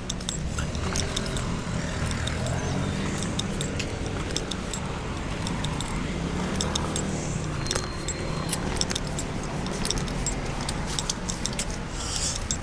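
Small metal items jangling and clicking irregularly as the wearer walks, over a low steady background rumble.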